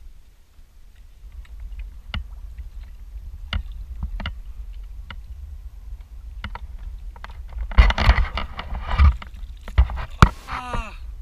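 Wind rumbling on the microphone aboard a fishing kayak, with scattered clicks and knocks from the rod and gear against the hull. About eight seconds in there is a loud burst of splashing lasting a second or so, followed by a sharp knock.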